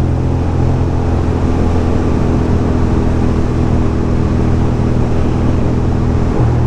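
A 2006 Ducati Monster 620's air-cooled L-twin engine running at a steady cruising speed, with wind and road noise rushing past.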